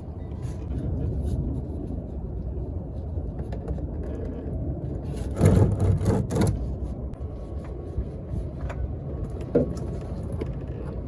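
Hands and tools working the oil filter off a car from underneath: scraping and a few sharp clunks, bunched about five to six seconds in, with another knock near the end, over a steady low background hum.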